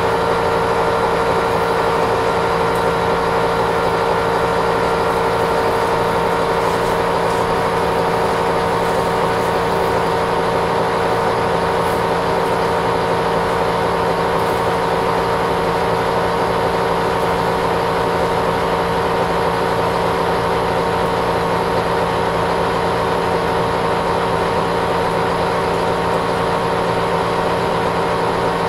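Metal lathe running steadily at 300 rpm with an even gear hum holding several constant tones, while a parting blade slowly feeds into a 12 mm bar.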